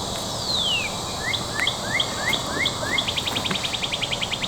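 A songbird singing one phrase: a single falling whistle, then about six short rising notes, then a fast trill of about twenty notes. Steady insect drone underneath.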